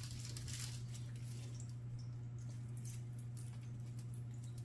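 Soft, wet squishing and faint clicks of a knife cutting into a baked breaded chicken breast, over a steady low hum.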